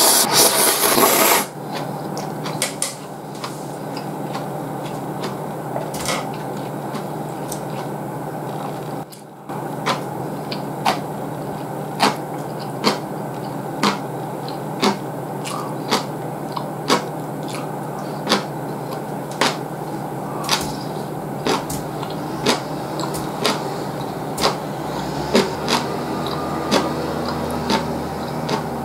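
A person slurps ramen noodles loudly for about a second and a half, then chews with sharp, wet mouth clicks about once a second over a steady low hum.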